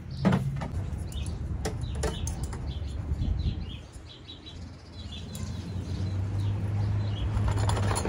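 Small birds chirping in the background, with a few sharp clicks and rustles as metal trellis rods are handled and pulled from a cardboard box. A low steady hum comes in past the middle.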